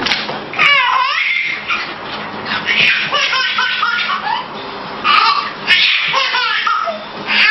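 A baby laughing hard in repeated bursts of giggles and belly laughs.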